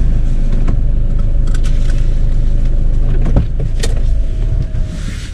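Camper van's engine idling steadily, heard from inside the cab, with a few sharp clicks and a knock about three and a half seconds in.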